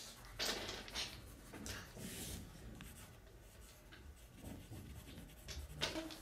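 Pencil scribbling on notebook paper: a run of short, irregular scratchy strokes.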